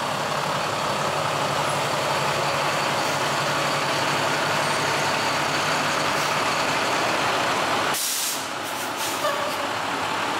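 International medium-duty truck running as it rolls up and stops, then a sharp hiss of air from its air brakes about eight seconds in that lasts over a second, followed by a couple of short puffs.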